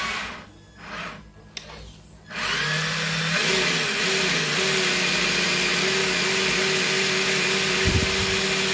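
Traxxas TRX-4's Titan 550 electric motor driving its transmission and freshly greased portal axles with the wheels off, spinning freely. It winds down, gives a short burst about a second in, then spins up with a rising whine and runs at a steady whine: a test run with the driveline working properly.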